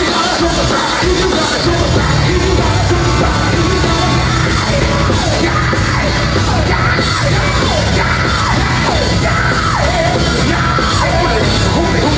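Live band music played loud: drum kit, electric bass and electric guitar, with a voice yelling and singing over the band.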